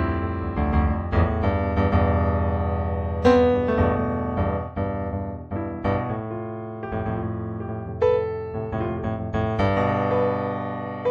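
Piano music, chords and melody notes struck and left to ring, a few louder chords standing out.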